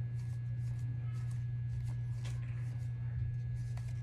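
Trading cards being slid off a hand-held stack one at a time, several soft flicks and rustles of card stock, over a steady low hum.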